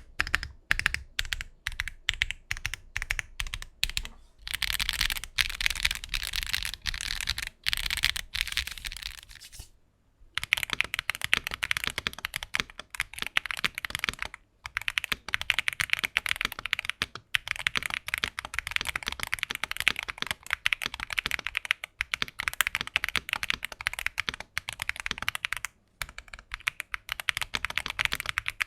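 Mechanical keyboard with factory-lubed Wuque Studio WS Brown tactile switches being typed on quickly: a dense run of keystroke clacks, broken by a few short pauses.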